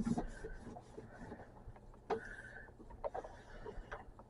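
Faint handling sounds from a damp dish towel wiping the inside of a toaster oven: soft rubbing with a few light taps.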